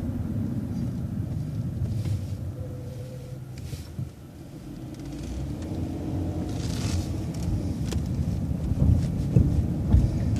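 City transit bus running from inside the cabin. The engine and road noise die down to their quietest about four seconds in, then build again as the bus pulls ahead. There is a brief hiss about two-thirds of the way through.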